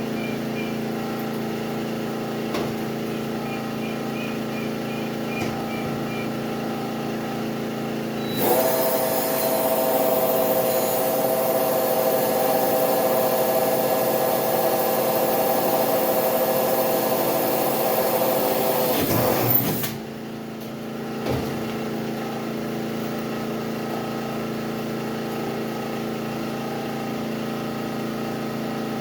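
A power tool runs steadily for about eleven seconds, starting about eight seconds in and cutting off near twenty seconds. Under it, a small engine keeps a steady drone throughout.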